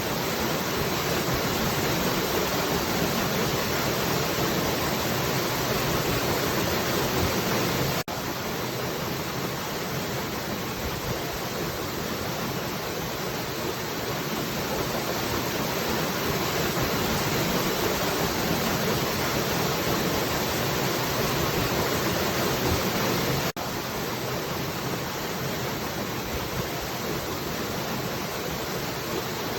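Steady rushing of falling water, an even hiss spread across the whole range. Twice it drops out for an instant, about eight seconds in and again near the end.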